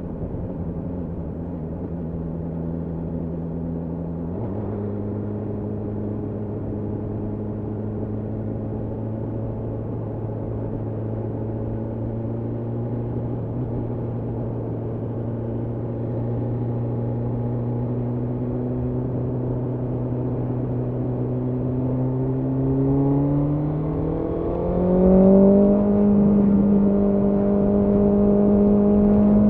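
BMW S1000R inline-four engine running under way, its note changing suddenly about four seconds in, then climbing slowly and steadily. About 22 seconds in it rises faster and louder as the bike accelerates, then levels off near the end.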